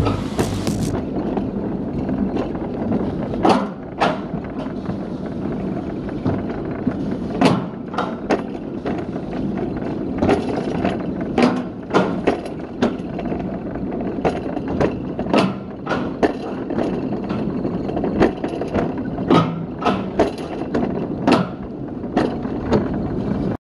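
A summer toboggan sled running in its steel trough track: a steady rolling rumble with sharp clicks and knocks about once a second.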